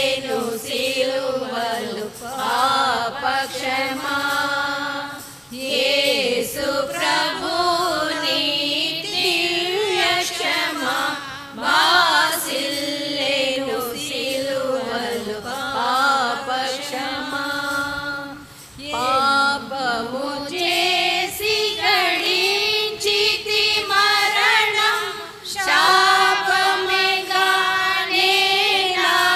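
A group of women singing a hymn together in unison, in long phrases with short breaks between them.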